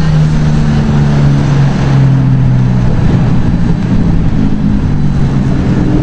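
Lamborghini Huracán's V10 engine running at low revs as the car rolls slowly through a tight turn, a loud, steady low engine note.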